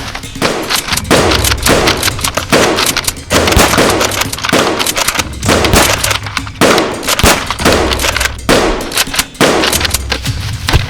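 Rapid, loud gunfire-like shots in quick bursts throughout, from blasters firing in a Nerf battle.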